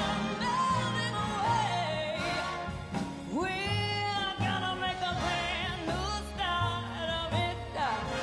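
A woman singing a belted, wordless vocal run with long held notes that glide and bend in pitch, over a live orchestra and rhythm section with a steady bass line.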